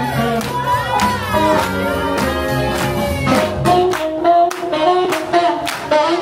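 Swing jazz song playing with a singer over a steady beat. The low bass line drops out about halfway through while the vocal melody carries on.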